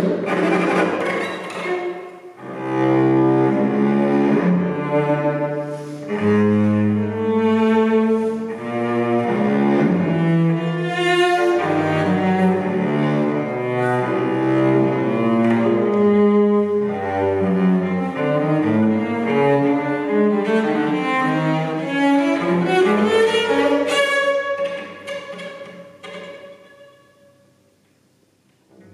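Solo cello played with the bow: a run of loud, sustained notes shifting in pitch, with a brief break about two seconds in. The sound dies away to near silence a few seconds before the end.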